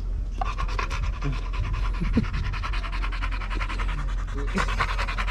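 Dog panting rapidly and steadily close by, the fast in-and-out breaths resuming just after a short pause.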